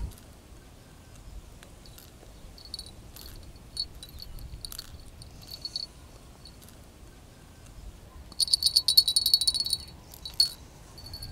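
Electronic carp bite alarm giving a few short high beeps as the line is moved. Two thirds of the way in comes a fast run of beeps lasting about a second and a half as line is drawn over the sensor while the swinger indicator is set.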